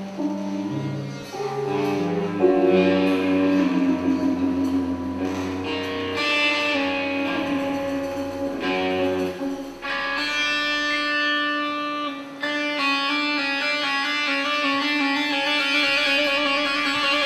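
Live flamenco-fusion band music: a slow electric guitar melody of held notes that step up and down in pitch.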